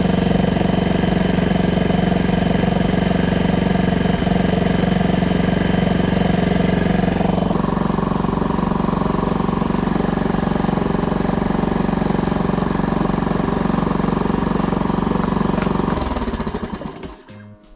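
Honda BF2DH outboard's small single-cylinder four-stroke engine running steadily, its tone changing about halfway through; the sound falls away near the end.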